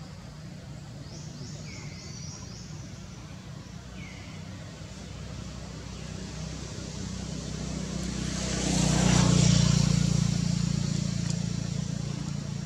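A motor vehicle's engine passing by: a steady low hum that grows louder to a peak about nine seconds in, then fades. A few short, high, falling chirps sound in the first few seconds.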